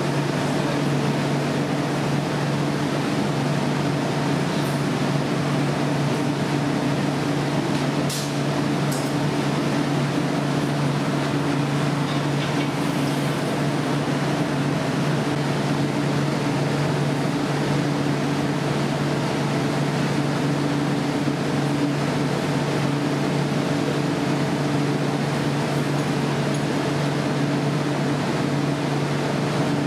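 Steady roar and hum of a glassblowing studio's burners and blowers, such as the glory hole used to reheat the glass. A couple of faint clicks come about eight seconds in.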